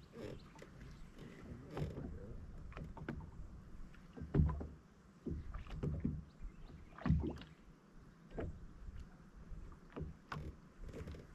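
Small waves slapping against a bass boat's hull in irregular low knocks and thuds, a few of them sharper than the rest.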